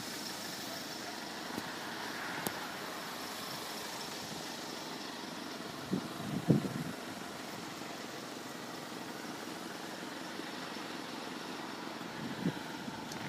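A car engine idling steadily, with a few brief thumps about six to seven seconds in.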